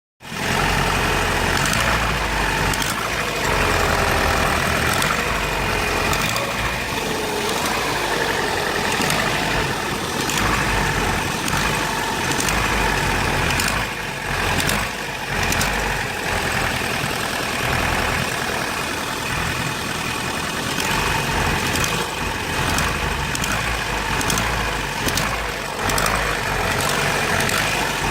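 Vauxhall Astra G 1.6 8-valve petrol engine (X16SZR) running unevenly, with sharp clicks at uneven intervals. The owner reports a heavy misfire when cold and a clicking noise whenever the accelerator is pressed.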